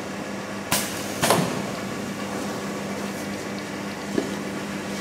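Hot melt glue box sealing machine running, its conveyor motor giving a steady hum. Two sharp knocks come about a second in, and a lighter one near the end.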